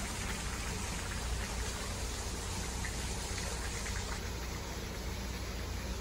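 Steady hiss of a park fountain's falling water, with a low rumble beneath it.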